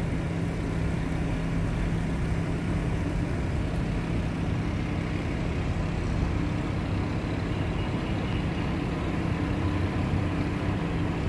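Steady low drone of a car's engine and cabin noise, heard from inside a slowly moving car.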